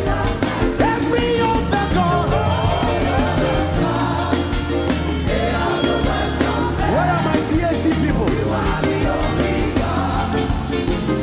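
Live gospel worship music: a band with steady bass and sung vocal lines, with voices singing together.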